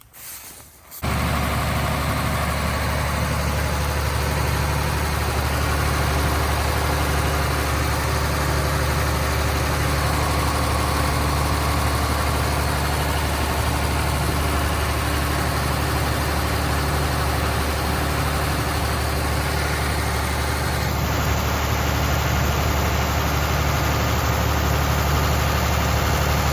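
Excavator's diesel engine running steadily at idle, coming in abruptly about a second in. The engine is blowing oil out through the valve covers, a sign of diesel fuel leaking into the crankcase, which the owner and his brother take for a failed injector.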